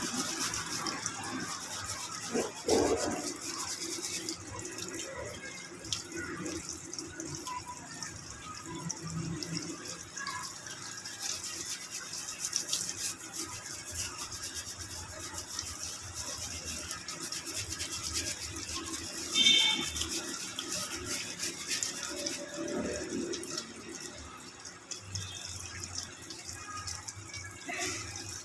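Water running from a tap, with scattered scrubbing and handling noises and a brief squeak about two-thirds of the way through.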